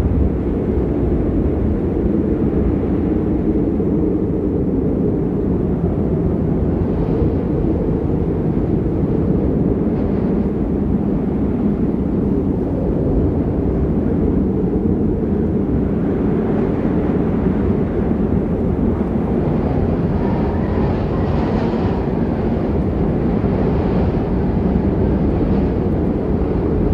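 Snowstorm wind gusting over the microphone: a loud, steady low rumble that turns a little hissier about two-thirds of the way through.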